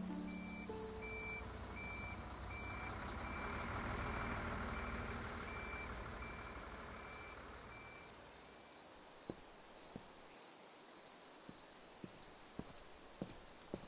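Crickets chirp steadily, about three chirps a second, as night ambience. Over the first half a bus engine runs low as the bus pulls in, then fades. In the second half footsteps on pavement come in at about two steps a second.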